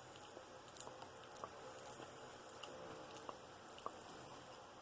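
A person chewing a bite of graham cracker topped with maple syrup, with a few faint crunches at irregular intervals.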